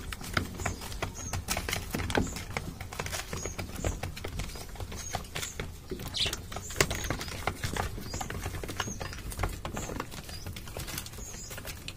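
Pigeons pecking pelleted feed from a plastic feeder: a rapid, irregular patter of beak taps on the plastic and the pellets.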